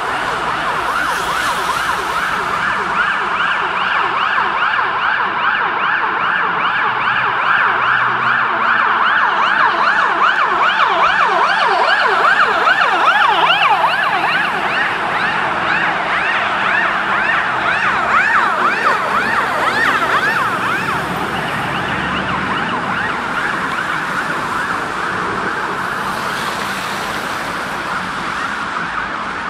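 Sirens of several fire engines on an emergency run: fast rising-and-falling wails overlapping one another. They grow loudest about halfway through as the engines pass, then fade away.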